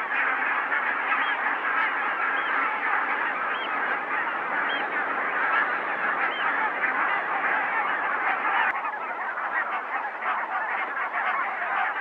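A large flock of geese honking together, many calls overlapping into one continuous chorus.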